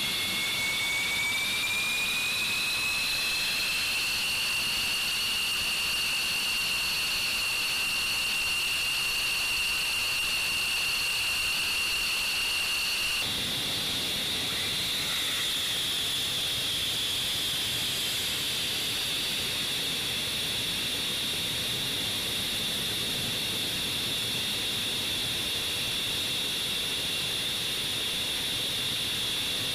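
F-15 Eagle's twin jet engines running as the fighter taxis: a high-pitched whine over a hiss, rising in pitch over the first few seconds and then holding steady. About 13 seconds in, the sound changes abruptly, with more low rumble under a single steady whine.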